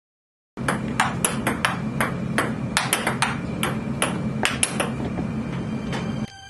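Ping-pong ball clicking off paddles and table in a quick, uneven rally rhythm, over a steady low hum. It cuts off suddenly near the end.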